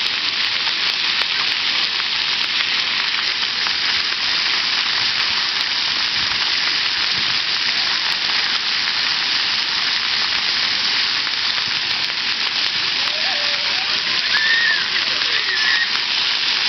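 Splash-pad water jets spraying and falling onto wet concrete, a steady hiss of spray and pattering water.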